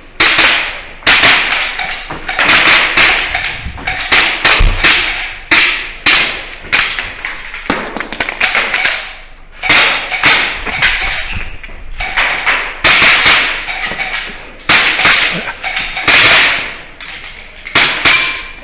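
Airsoft pistol firing in rapid strings, each shot followed by the sharp clang of BBs striking steel target plates with a short metallic ring.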